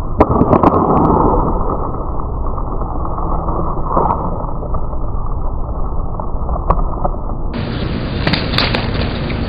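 Skateboard deck and wheels clacking on asphalt: a quick run of sharp snaps and knocks in the first second as a flip trick is popped and landed, then single knocks about four and seven seconds in and a few more near the end, over a steady rushing noise.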